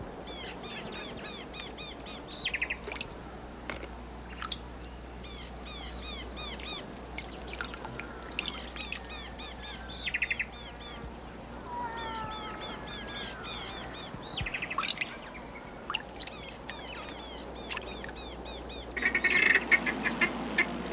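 Wild birds calling: quick series of short repeated chirps, a few brief trills and some sliding whistled notes. About nineteen seconds in, louder, harsher chattering calls start.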